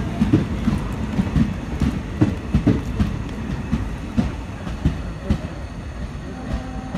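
Indian Railways passenger coaches rolling past and away, their wheels clattering and knocking over the rail joints in an uneven clickety-clack over a low rumble. The clatter fades as the last coach goes by.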